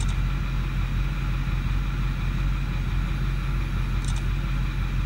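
Ford 6.4 L Powerstroke twin-turbo V8 diesel idling steadily, heard from inside the truck's cab, with two faint ticks, one at the start and one about four seconds in.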